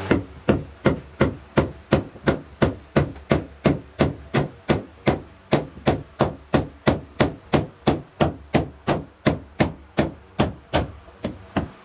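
A hand tool striking wood in a steady rhythm, about three sharp blows a second, each one evenly loud.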